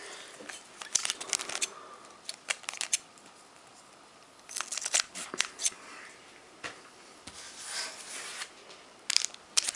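Pokémon trading cards and their packaging being handled: scattered short rustles and clicks in several clusters.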